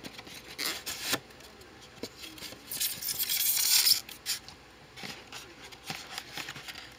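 Cardboard-box packaging being handled: a foam insert scraping as it is worked out of the box, then hands rustling at the plastic-wrapped diecast car, heard as a string of short scrapes and clicks. The longest and loudest scrape comes about three seconds in.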